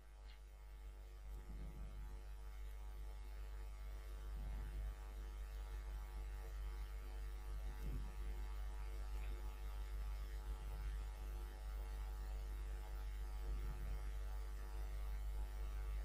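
Low, steady electrical mains hum in the recording, a buzz of many steady tones.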